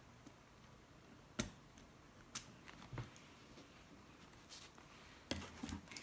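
Mostly quiet, with a few sharp, faint clicks of a marking pen and plastic template on a cutting mat while a short line is drawn, then a brief rustle of handling near the end as the template comes off the vinyl.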